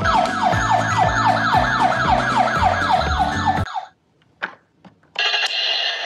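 Battery-powered toy ambulance's electronic siren: a rapid falling yelp, about four sweeps a second, over background music, cutting off suddenly about three and a half seconds in. After two short clicks, a different wavering siren sound starts about five seconds in.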